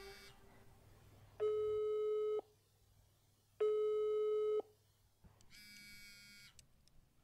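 Telephone ringback tone as a call rings out: two loud, steady tones of about a second each, a second apart. Then, fainter, a higher electronic phone ring sounds near the end as the phone at the other end rings.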